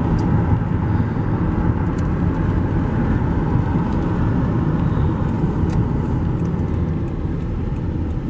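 Car driving: a steady low rumble of engine and tyres on the road, with a few faint ticks.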